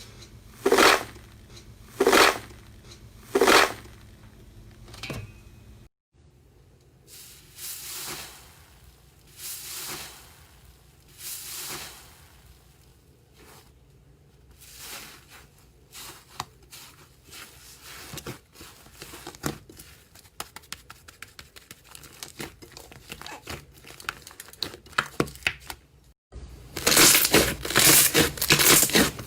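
Slime being squished and worked by hand. It starts with three loud squelches a little over a second apart, then softer stretching and pressing sounds, then runs of small crackling pops that turn dense and loud near the end.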